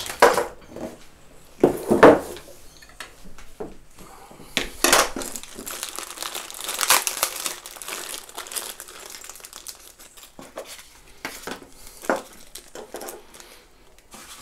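Clear plastic parts bag crinkling and rustling in irregular bursts as it is handled and opened, with several louder rustles along the way.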